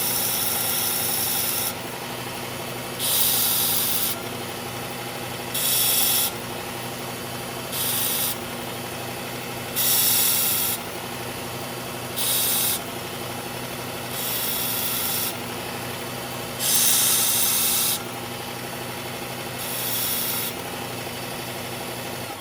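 Belt grinder running with a steady hum while a Gerber Propel Downrange knife blade is drawn across the belt in about eight hissing passes, each half a second to a second long. The passes are grinding a new edge bevel into hard, stubborn blade steel to raise a burr.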